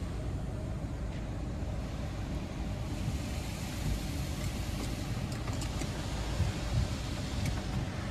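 Spray jets of a touchless automatic car wash hitting the car, heard from inside the cabin: a steady low rumble with a hiss of water on the windows that grows stronger about three seconds in.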